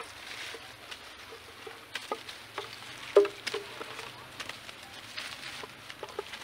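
Dry leaf litter and twigs crackling and rustling as macaques scramble over the ground and climb thin saplings, with irregular small clicks and snaps. A sharper, louder sound stands out about three seconds in.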